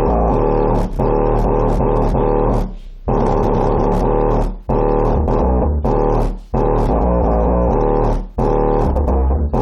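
Bass-heavy music played loud through a rebuilt JL Audio W7 subwoofer driven at high power, its cone making large excursions. The loud, steady sound dips briefly four times.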